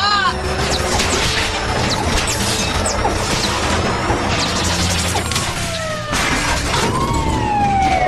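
Cartoon action-scene soundtrack: dramatic music over a dense, continuous wash of crashing and rumbling sound effects. Several falling electronic tones come in near the end.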